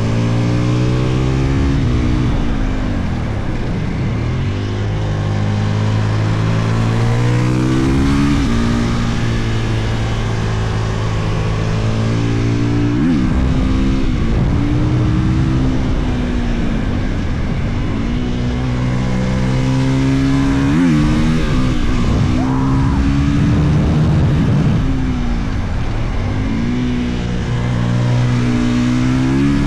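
2022 Husqvarna FE 450's single-cylinder four-stroke engine being ridden hard: the pitch climbs under throttle and then drops sharply at each gear change or roll-off, several times over, above a steady rushing noise.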